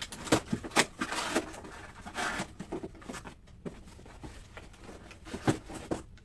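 Hands rummaging in a cardboard box, rustling packing paper and wrappings, with scattered light knocks and taps of items against the cardboard.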